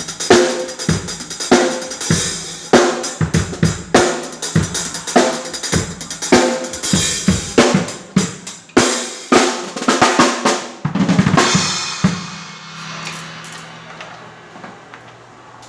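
Acoustic drum kit being played: rapid snare, bass drum and cymbal strokes. The playing stops about twelve seconds in, and the cymbals ring out over a low steady hum.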